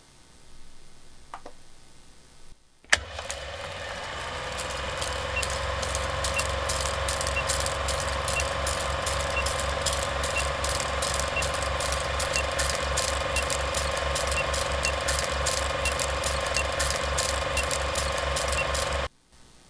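Intro soundtrack: a steady engine-like running sound with a fast, even low pulse and a faint high tick about once a second. It starts with a sharp hit about three seconds in and cuts off suddenly near the end.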